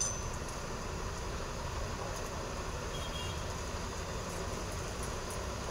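Steady background noise with no distinct events, and a faint click at the very start.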